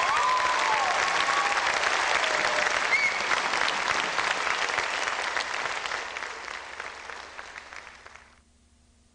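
Audience applauding, with a few cheers and a short whistle about three seconds in. The applause fades and has died away by about eight seconds in.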